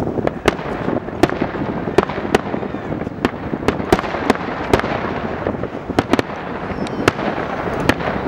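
Aerial firework shells bursting in an irregular series of sharp bangs, about two a second, over a dense, steady noise.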